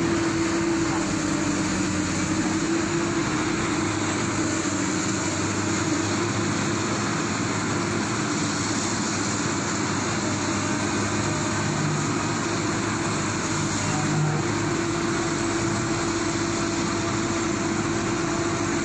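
Excavator's diesel engine running steadily at constant speed, a continuous drone with a steady hum.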